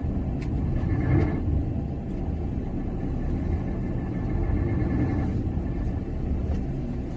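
Heavy truck's engine running with a steady low rumble.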